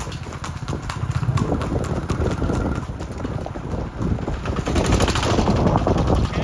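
Horse hooves galloping: a fast, continuous run of hoofbeats.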